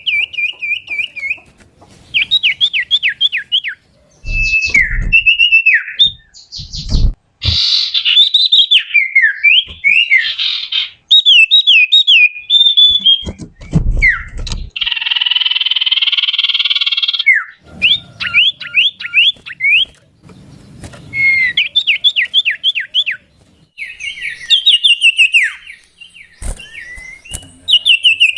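Common iora (cipoh) singing: repeated clear whistled phrases and fast rippling trills, broken by one harsh rasping call of about two seconds in the middle. A few dull low thumps sound in the first half.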